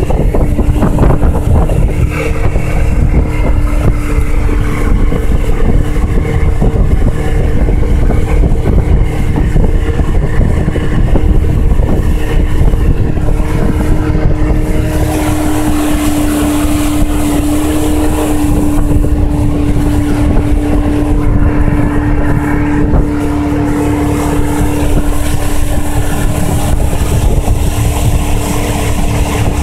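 The boat's outboard motor runs steadily at speed, its tachometer near 4,500 rpm, as the hull moves over the water. Wind noise on the microphone adds a hiss that gets louder about halfway through.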